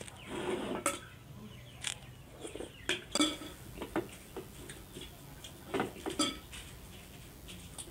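A metal spoon clinking and scraping against a ceramic bowl while someone eats, in scattered, irregular taps.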